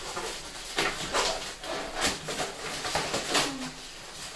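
Packaging being handled and pulled off a ceramic soap dispenser: irregular crinkling and rustling in short bursts.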